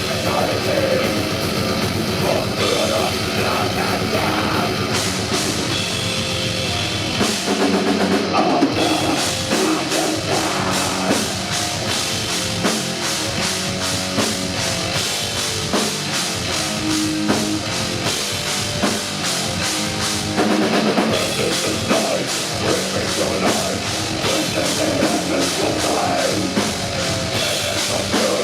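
Heavy metal band playing live, with a drum kit prominent over the band; about seven seconds in the drumming turns to a fast, dense beat.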